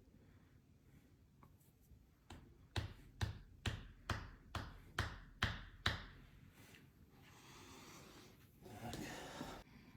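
Hands striking a person's body during chiropractic massage: about eight sharp, even thumps, roughly two or three a second. A breathy rush of noise follows near the end.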